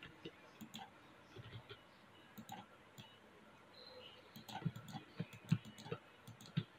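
Faint, scattered clicks of a computer mouse and keyboard during editing, a few at first and more frequent after about four seconds.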